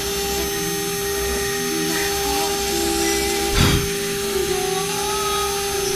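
CNC router spindle running with a steady high whine while its bit engraves an outline into a flat sheet, with lower tones that shift in pitch as the head moves along the cut. A brief thump about three and a half seconds in.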